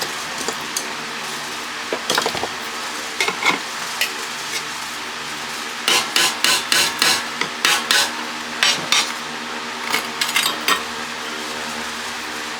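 Sharp metal clinks and knocks in irregular runs, densest about halfway through, as a water pump's motor is taken apart by hand. An electric fan hums steadily underneath.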